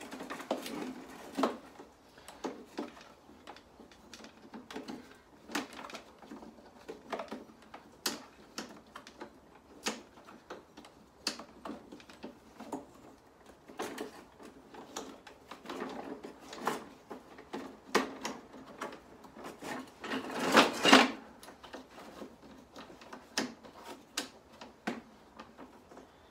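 Irregular clicks, knocks and rattles from the handle clamps of a Bosch Rotak 34-13 lawnmower as they are worked and fastened by hand, with a longer, louder rattle about twenty seconds in.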